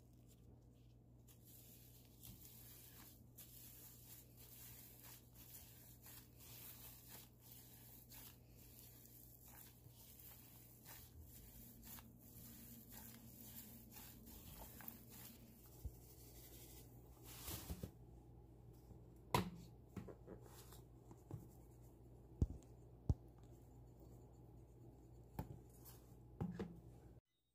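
Faint squishing and rubbing of a gloved hand kneading ground chicken mixed with spices in a plastic bowl. There are a few sharper clicks in the second half, and a steady low hum throughout.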